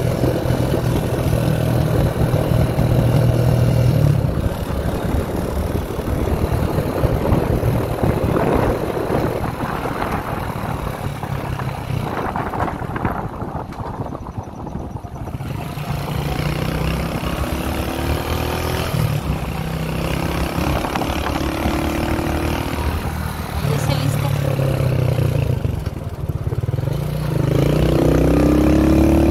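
Italika FT150 motorcycle's single-cylinder engine running under way, its pitch shifting with the throttle and rising near the end as it accelerates.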